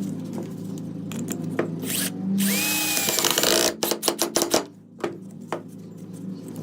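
Power tool running with a steady hum. About two and a half seconds in it bears down loudly for about a second, with a whine that rises and then holds. A quick run of sharp clicks follows.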